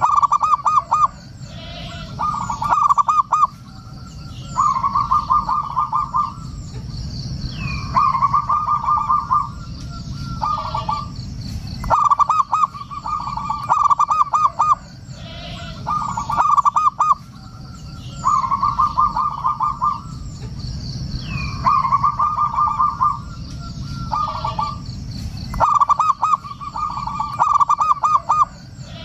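Zebra dove (perkutut) singing its cooing song: phrases of rapid, trilled coos, each one to two seconds long, repeated every two to three seconds. Faint chirps sound above it and steady low noise runs beneath.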